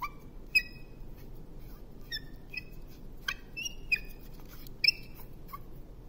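A string of about a dozen short, high squeaks, irregularly spaced, over a faint steady background hum.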